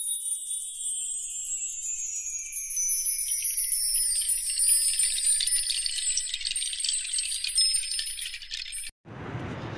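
Shimmering jingle-and-chime sound effect, a dense high-pitched glitter that slowly falls in pitch and cuts off abruptly near the end, followed by faint steady noise.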